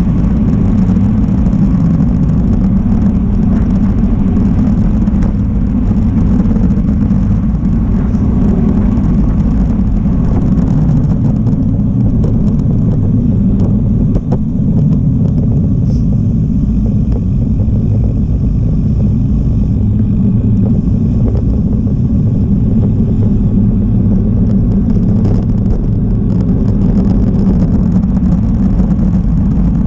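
Steady, loud low rumble of wind buffeting the microphone of a camera on a moving bicycle.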